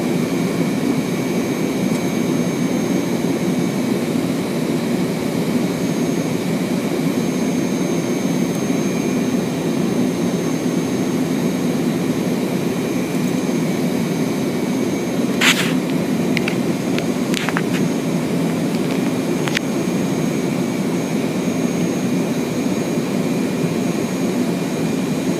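Steady flight-deck noise of the Fokker 100 on approach: airflow and its two rear-mounted Rolls-Royce Tay turbofans, with a few thin steady high whines above it. A couple of sharp clicks about fifteen and seventeen seconds in.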